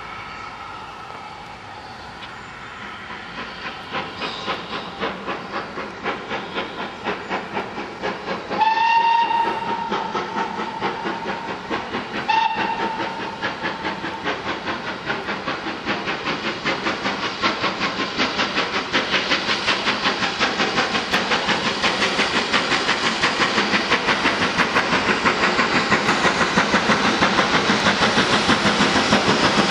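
GWR Manor-class 4-6-0 steam locomotive 7812 Erlestoke Manor pulling away with a train: its exhaust beats grow louder and quicker as it approaches. Its whistle gives one long blast about a third of the way in, then a short one a few seconds later.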